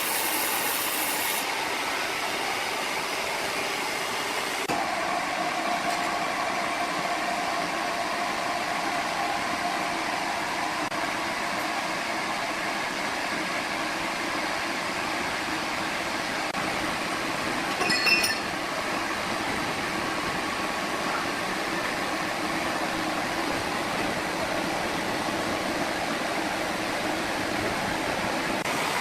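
Sawmill machinery running steadily, with a faint steady whine that comes in about five seconds in and a brief metallic clink about eighteen seconds in.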